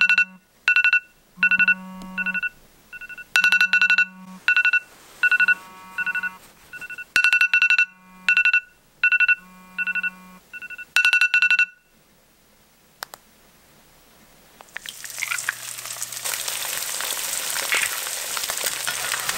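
An iPhone alarm ringing in repeating groups of sharp beeps, with a low buzz alongside, then stopping about 12 seconds in. A few seconds later eggs start sizzling in a frying pan with a steady crackle.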